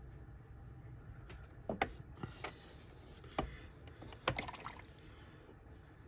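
A handful of short, sharp knocks and clicks in the middle seconds, from painting supplies and the taped watercolour board being handled and turned on a desk, over a low steady hum.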